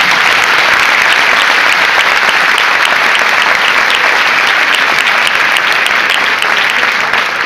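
Audience applauding loudly, dense steady clapping that eases off a little near the end.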